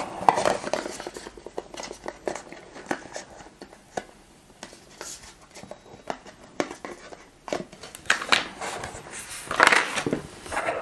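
Cardboard box and its card insert rustling and scraping as it is handled, with scattered light clicks of small metal mounting bars and screws being picked up and set down.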